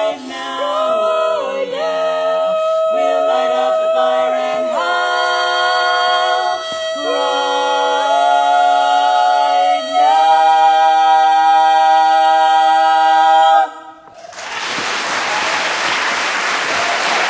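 Women's barbershop quartet singing a cappella in close four-part harmony, finishing on a final chord held for several seconds that then cuts off. The audience breaks into applause right after, for the last few seconds.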